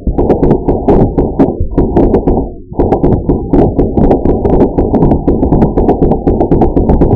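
Background music with a fast, driving percussive beat, its sound mostly held low and muffled, with sharp clicks several times a second and a short drop-out a little under three seconds in.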